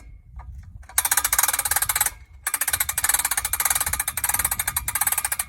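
Cordless drill winding the ATV log hitch's winch spool to tighten the cable: rapid, even clicking in two bursts, a short one starting about a second in and a longer one after a brief pause.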